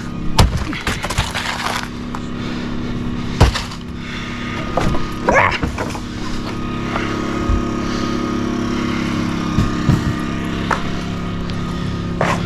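A motor running steadily, with several sharp knocks of demolition debris and a brief creak about five seconds in.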